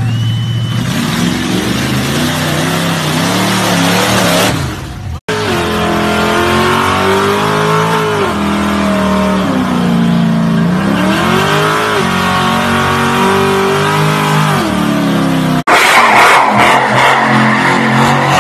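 Old pickup truck engines in three short clips. First a lifted Ford pickup's engine runs under load in deep mud. About five seconds in, a square-body Chevy pickup does a burnout, its engine revving up and down again and again over spinning tyres; near the end an old Ford F-100 does a louder, noisier burnout with tyre squeal.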